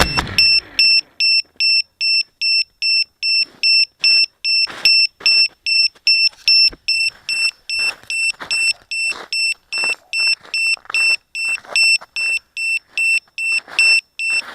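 Eachane Racer-250 quadcopter's motors spinning down, then its alarm beeper sounding a steady high beep about twice a second, the quad sitting disarmed on the ground.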